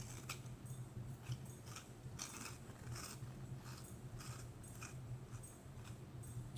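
Close-miked chewing of a mouthful of turkey pot pie: soft, irregular wet clicks and smacks of the mouth over a low steady hum.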